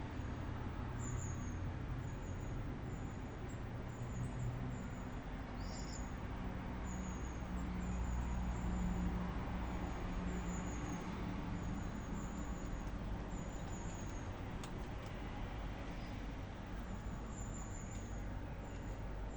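Steady outdoor traffic noise, with a vehicle's engine hum swelling and passing about a third of the way in. Over it a small bird chirps repeatedly in short, high, falling notes.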